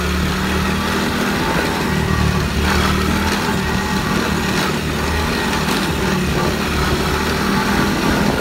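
ATV engine running steadily while riding.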